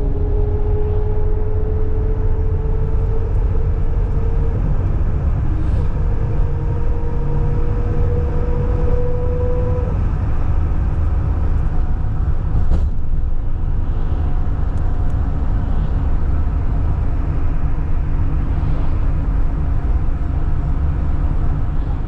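Steady low rumble of a moving vehicle, with a faint whine that slowly rises in pitch over the first ten seconds.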